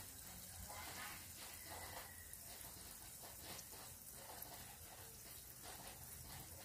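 Faint sizzling and crackling of rice-field crickets simmering in a fish-sauce glaze in a wok.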